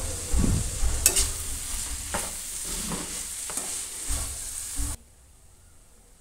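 A metal slotted spoon scrapes and knocks in a metal kadhai, stirring roti strips into sautéed vegetables, with a light sizzle under it. The scrapes come every half second or so and stop abruptly about five seconds in.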